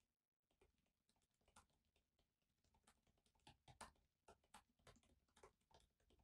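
Faint, irregular typing on a laptop keyboard: a quick, uneven run of soft key clicks, a few a little louder than the rest.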